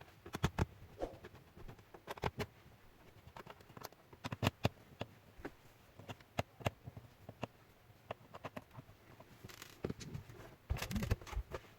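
Irregular small clicks and taps of a small screwdriver and loose screws on the plastic bottom case of an Acer Aspire 3 laptop as its screws are taken out, with a short run of louder knocks near the end.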